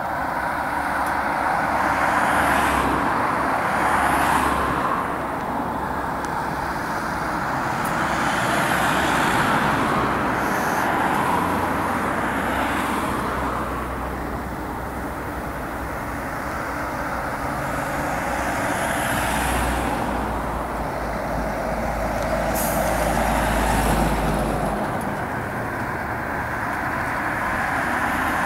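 Road traffic on a dual carriageway: cars, vans and lorries passing one after another, the tyre and engine noise swelling and fading as each goes by.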